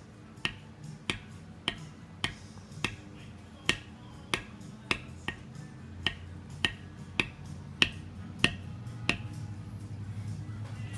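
A maul tapping a metal stamping tool into leather while tooling a carved holster flap: a steady run of sharp taps about every half second, stopping about nine seconds in.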